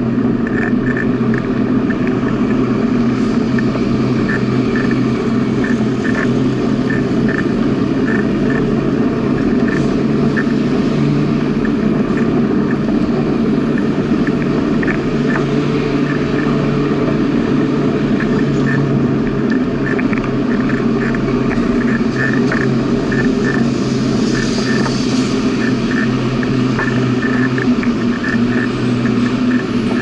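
Steady hum and rumble of a bicycle rolling along a paved path, picked up through a bike-mounted camera, with scattered light ticks and rattles.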